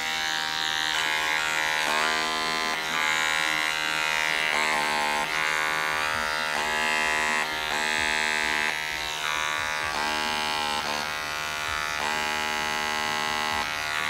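Battery-powered blackhead pore vacuum running with a steady electric buzz, its tone shifting every second or so as the suction tip is worked over the nose.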